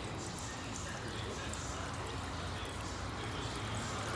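Cold water pouring and trickling steadily from a cup over a car's engine control module, cooling the heat-soaked unit for a hot no-start test.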